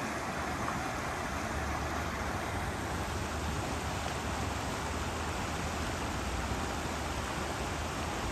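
Babbling brook: a steady rush of running water.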